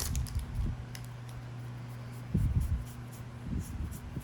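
Soft handling sounds of trading cards being flipped through from a booster pack: light clicks and a couple of soft thumps, over a steady low hum.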